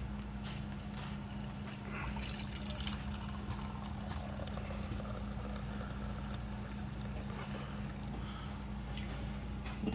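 Hot coffee poured from an enamelware coffee pot into an enamel camp mug, the stream splashing and filling the mug from about two seconds in. A steady low hum runs underneath.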